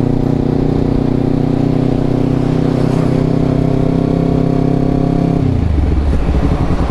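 Honda CBR250RR's parallel-twin engine running at a steady cruise, heard from the rider's seat. About five and a half seconds in, the engine note drops sharply and turns lower and rougher as the revs fall.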